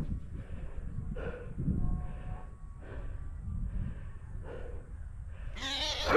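A person breathing hard close to the microphone, a puff about every second, over a low wind rumble, with a louder harsh cry just before the end.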